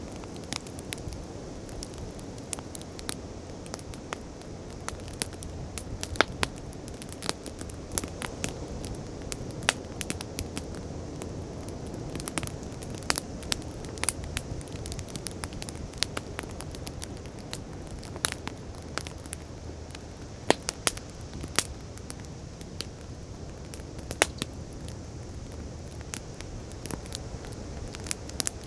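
Wood bonfire crackling, with frequent irregular sharp pops and snaps over a low steady rush of waves.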